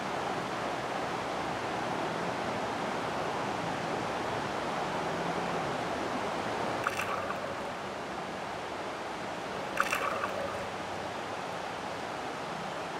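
Shallow river water running over gravel: a steady rushing hiss, with two short sharp clicks about seven and ten seconds in.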